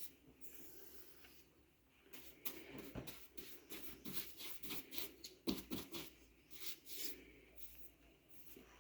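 Paintbrush bristles scratching and swishing against a painted door frame: a faint, irregular run of short brush strokes, busiest in the middle of the stretch.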